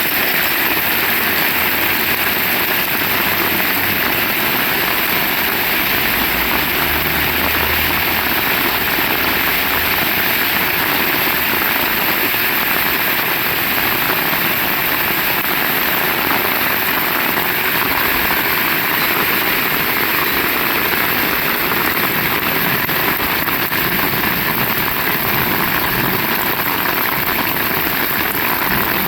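Heavy rain falling steadily, a dense even hiss of drops, with a faint low rumble underneath during the first several seconds.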